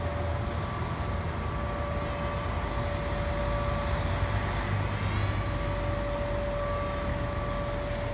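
Steady background noise of trucks and machinery: a low engine rumble with a steady droning hum, and a brief hiss about five seconds in.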